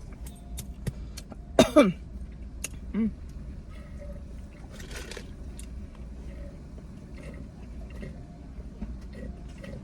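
Eating sounds, with small clicks and crunches of food and container over a steady low rumble. There is a brief falling vocal sound about a second and a half in, and another short one about a second later.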